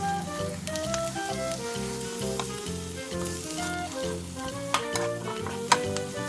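Mushroom and vegetables sizzling in butter in a frying pan, with a few sharp utensil taps in the second half. Background music with a steady, repeating bass runs underneath.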